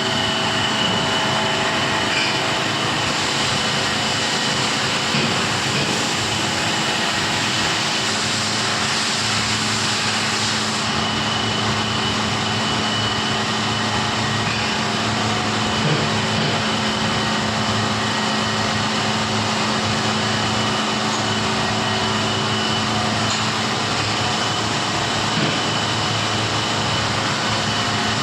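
Industrial machinery running steadily: an even hiss with a low hum and a thin, high whine.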